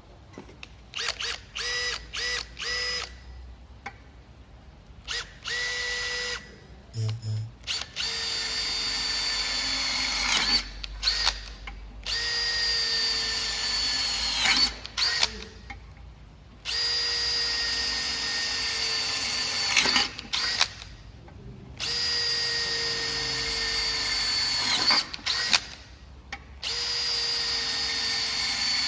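Makita DHP487 18 V cordless hammer driver-drill running in repeated trigger pulls: a few short blips, then several runs of a few seconds each, the motor whine dropping in pitch as it winds down after each release.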